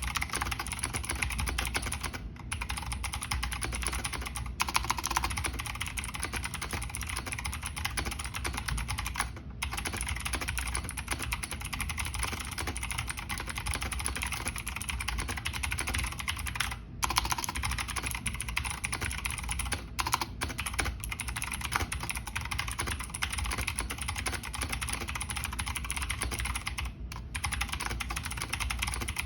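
Fast, continuous typing on a Razer BlackWidow V3 Mini mechanical keyboard with clicky Razer Green switches and no O-rings, a dense run of sharp key clicks. There are brief pauses every few seconds.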